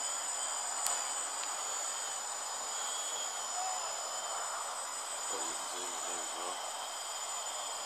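Gaui 330X-S quadcopter flying: its electric motors and propellers give a steady hiss with a high whine. A single sharp click comes about a second in.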